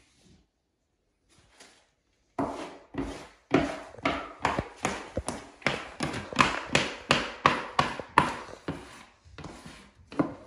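Hands and a plastic wallpaper smoother rubbing a spliced piece of wallpaper flat against the wall: a quick run of scraping strokes, about two to three a second, starting a couple of seconds in.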